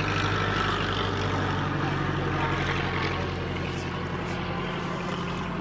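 Curtiss Jenny biplane passing overhead, its water-cooled V8 engine and propeller running steadily and fading slightly over the last couple of seconds.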